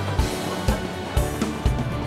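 Background music with a steady beat: a deep thump about twice a second under sustained instrumental tones.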